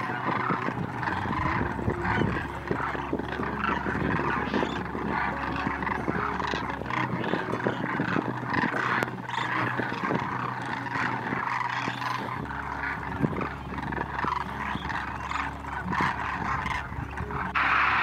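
A large flock of demoiselle cranes calling, many overlapping calls at once. Near the end it gives way abruptly to a steady noise.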